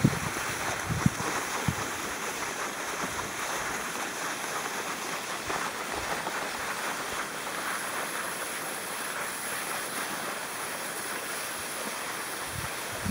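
Steady rushing, scraping noise of cross-country skis gliding on a groomed snow track, with wind on the microphone. A few short low knocks in the first two seconds.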